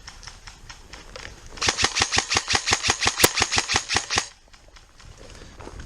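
Airsoft guns firing: a close, rapid string of shots at about ten a second, lasting about two and a half seconds from about a second and a half in, with fainter shots before it.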